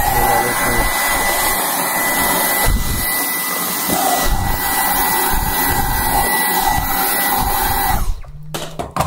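Cordless handheld vacuum cleaner running steadily with a high whine while it sucks dirt out of the dryer's base; it switches off about eight seconds in.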